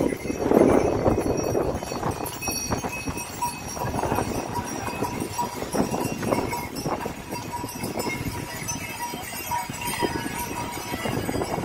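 Ponies' hooves clip-clopping irregularly along the trail as riders pass.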